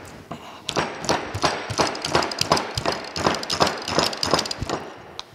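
Quick run of metallic clicks and knocks, about three or four a second, as a flat pry bar levers a tight clutch-pack gear off its steel shaft, rocking it against the bar and shaft. The clicks stop shortly before the end.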